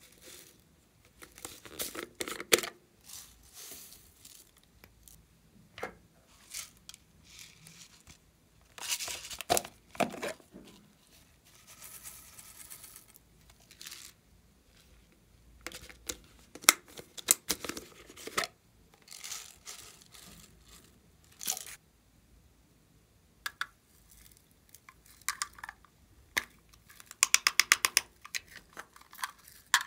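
Small plastic toy containers being handled and opened, with scattered clicks, taps and rustles, and glitter and sequins shaken out in a brief hiss. Near the end comes a fast run of clicks as a plastic part is twisted.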